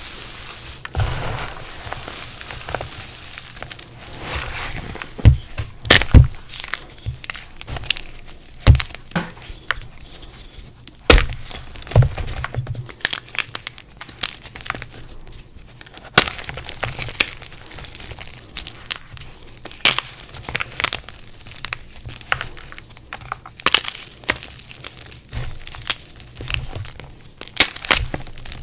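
Hands crushing dried blocks of reformed gym chalk. Brittle chunks snap with irregular sharp cracks over a gritty crumbling.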